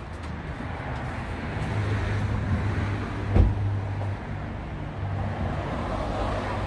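Car engine idling with a steady low hum, and a car door shutting with a single thud about three and a half seconds in.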